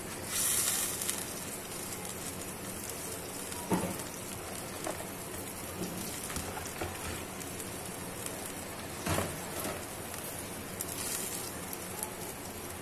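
Seasoned broth boiling in a nonstick wok, a steady bubbling hiss, as a block of dry rice vermicelli (bihon) is pushed into it. A louder rush of hiss comes right at the start, and there are a few soft knocks from a spatula.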